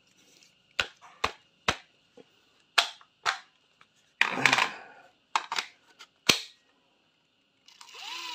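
Sharp plastic clicks and clacks of a battery pack and a Makita XDT15 18V brushless impact driver being handled, with one longer rattle about four seconds in. Near the end the driver's brushless motor starts with a whine rising in pitch.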